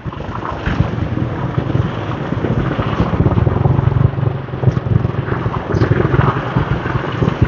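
Wind rumbling on the microphone of a moving motorbike, mixed with the steady running of its engine and the motor scooters and cars in the traffic around it.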